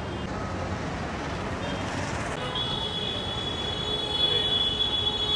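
Street din with a long, steady high-pitched squeal starting about halfway through and holding to the end.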